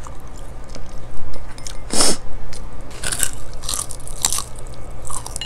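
Close-miked eating: chewing and biting food, with a handful of short crunchy bites starting about two seconds in.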